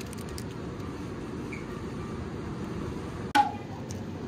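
A clear plastic deli cup knocks once with a sharp click as it is taken from the shelf, over a steady low background hum.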